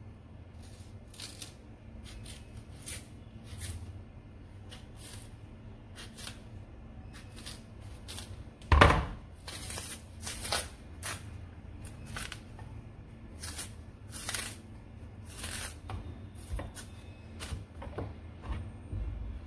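Kitchen knife slitting and scraping the skin of unripe green plantains and the thick peel being pulled off by hand: a run of short, irregular scraping and tearing sounds. A single loud knock comes about nine seconds in.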